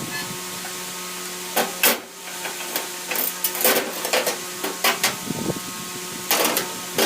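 Repeated short hissing bursts, six or seven at irregular intervals, over a steady mechanical hum.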